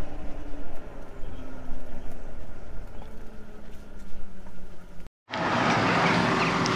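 Wind buffeting and road rumble from riding an electric motorcycle (Zero SR/F), with a faint motor whine that steps down in pitch as it slows. The sound cuts out abruptly about five seconds in, and a steady low hum follows.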